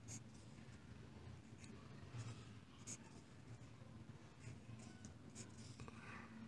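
A pen scratching on notebook paper in a series of short, faint strokes, crossing out numbers and drawing tally marks.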